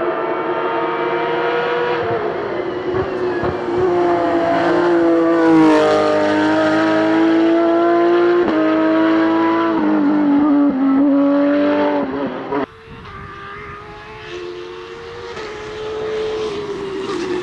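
Porsche 992 Rally GT rally car's engine running hard at high revs, its pitch stepping down and climbing again through gear changes. About thirteen seconds in, the sound drops off sharply and then builds back up toward the end.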